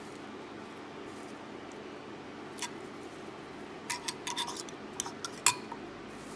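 Scattered light clicks and scratches from coating an egg-dipped shrimp in shredded coconut in a bowl: a single click, then a small cluster about four seconds in, with the sharpest click near the end, over a steady low hum.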